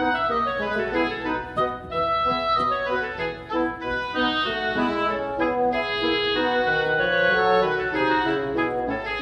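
Instrumental music: a run of changing pitched notes over chords at an even loudness.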